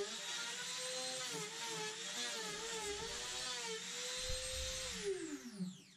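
Trim router mounted under a router table running with a flush-trim bit, cutting excess laminate from a plywood panel edge; its whine dips and wavers in pitch as the bit takes the cut. About five seconds in it is switched off and winds down with a falling whine.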